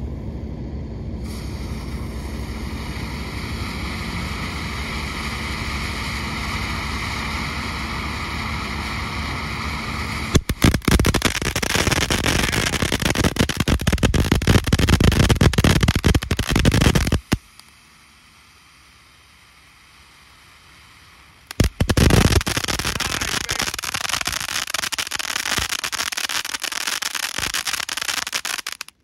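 Firehawk 'Noah's Ark' ground fountain firework spraying: a steady hiss for about the first ten seconds, then loud dense crackling for about seven seconds. After a short quieter lull, a second burst of crackling follows.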